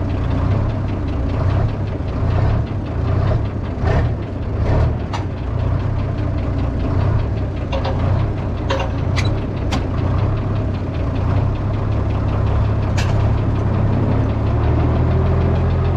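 Tractor engine running steadily, close up, with a few short sharp clicks and knocks along the way.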